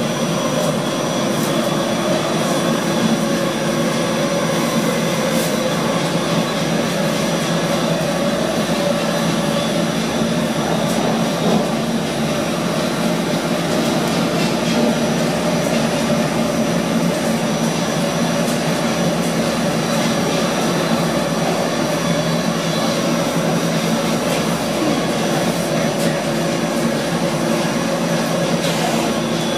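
Steady running noise inside an NFTA Metro Rail light-rail car riding between stations: an even hum holding several steady tones over constant wheel and rail noise.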